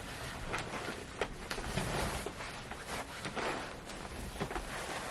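Clothing rustling and soft scuffing and handling noises as someone pulls on layers of pants, irregular with a few faint clicks.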